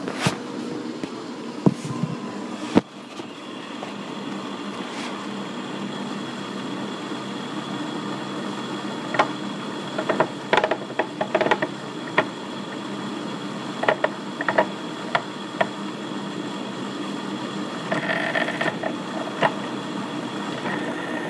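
American Pacemaker geared-head lathe running steadily under power, its motor and headstock gears turning with oil splashing through them. A scattering of light clicks and knocks comes over it in the middle stretch.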